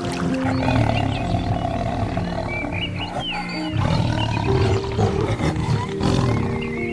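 Soft background music of held piano and guitar notes, with a large animal growling over it several times and some high chirps.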